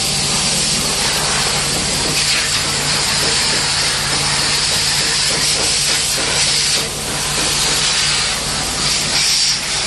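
Pressure washer running: a steady hiss of spraying water over the low, even hum of its pump motor.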